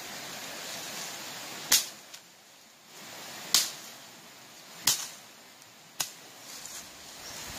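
Four sharp cracks, spaced one to two seconds apart, over a steady hiss.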